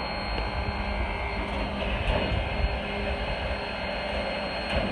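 Train locomotive idling with a steady low rumble and hiss.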